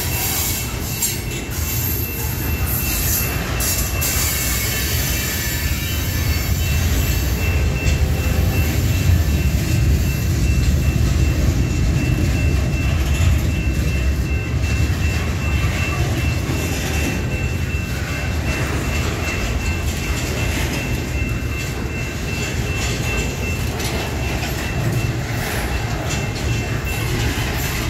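Heavily loaded CSX steel slab and bulkhead flatcars rolling past close by: a steady, heavy low rumble of wheels on rail, growing a little louder in the middle. A faint, steady high-pitched tone runs over it from about a quarter of the way in until near the end.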